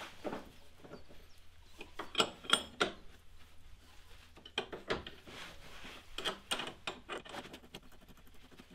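Steel parts of a rear axle bush removal sleeve tool clinking and knocking as they are fitted together by hand around the bush: scattered sharp metal clicks in three bunches, the loudest two about two seconds in.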